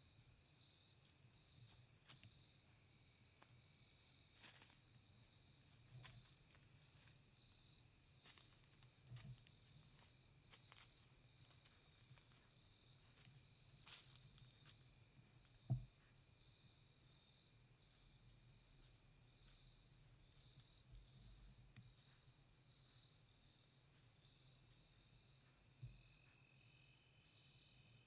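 Steady insect chorus, a constant high-pitched shrilling that pulses gently throughout, with faint scattered ticks and one sharp click about 16 seconds in.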